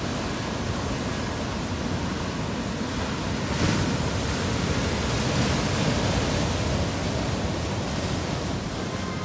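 Ocean surf washing on the shore: a steady rush of waves, with a wave breaking louder about three and a half seconds in.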